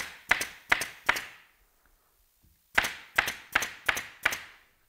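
Pneumatic staple gun firing staples through canvas into a theatre flat's wooden frame. There are four sharp shots at about two and a half a second, a pause of about a second and a half, then five more shots at the same pace.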